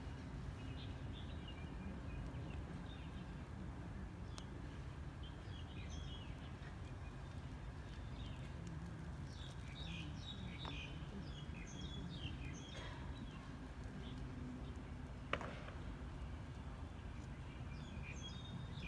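Open-air background: a steady low rumble with small birds chirping on and off, busiest about ten to thirteen seconds in. There is a single sharp click about fifteen seconds in.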